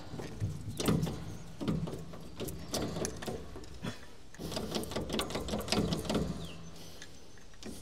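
Stiff hydraulic control lever on a Massey Ferguson 178 tractor being worked back and forth to free it after years of sitting, giving repeated metallic clicks and knocks about once a second, with a quicker run of rattling clicks in the second half.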